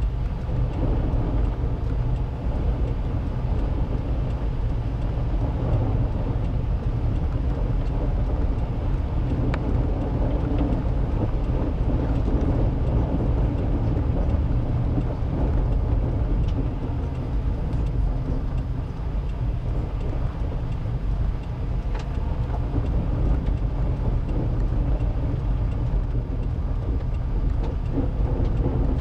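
Car driving on a muddy, snow-covered dirt road, heard from inside the cabin: a steady low rumble of engine and tyres on the rough surface, with a faint tick twice.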